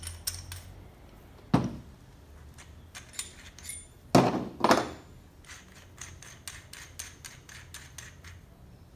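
Steel keyed drill chucks and their keys being handled and set on a table: light metallic clicks and clinks, with a sharper knock about a second and a half in and two more close together around four seconds in.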